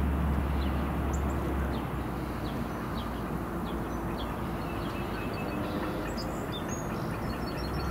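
Diesel track geometry car running as it rolls slowly along the rails: a low engine drone and track noise, heaviest at first and easing about a second and a half in. Birds chirp repeatedly over it.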